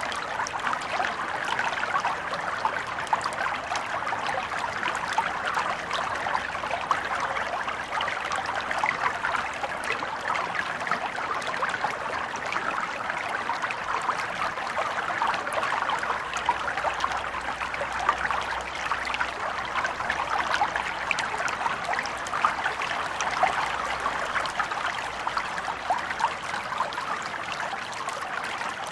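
A shallow stream flowing steadily, water trickling and babbling over stones.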